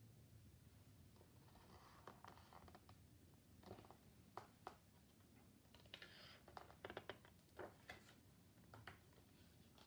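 Near silence with faint rustling and small clicks of a picture book's pages being handled and turned, the clicks clustering between about four and nine seconds in.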